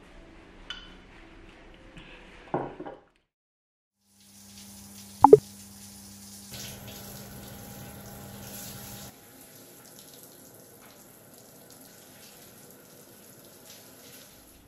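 Overhead shower running, water spraying steadily down onto a person's hair; it starts about four seconds in, after a moment of silence. A short, sharp pop sounds just after the water starts.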